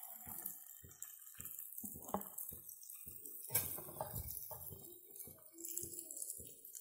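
Wooden spatula scraping masala paste off a plate and dabbing it onto a banana-leaf parcel on an iron tawa: a run of irregular light taps and scrapes.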